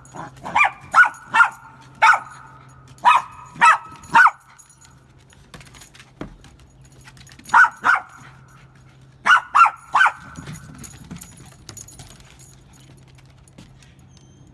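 A dog barking in short, sharp barks: a quick run of about eight, a pause of about three seconds, then about five more, stopping about ten seconds in.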